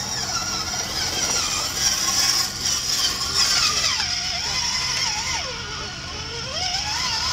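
Electric motor and gear drive of a radio-controlled scale crawler truck whining as it crawls over dirt, the pitch rising and falling with the throttle.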